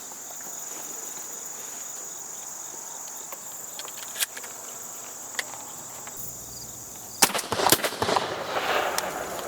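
A steady, high-pitched drone of field insects, with a couple of faint clicks. About seven seconds in comes a quick burst of sharp knocks and rustling, like handling noise close to the microphone.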